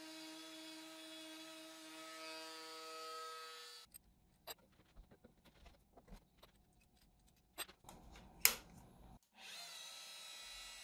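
Electric power-tool motor running at a steady speed with a whine, which cuts off sharply about four seconds in. Scattered clicks and knocks follow, including one sharp loud knock, and then a steady motor hum comes back near the end.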